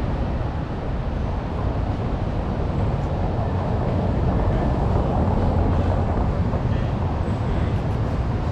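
Steady low rumble of city street noise, picked up on a GoPro's microphone, with most of its weight in the bass and no distinct events.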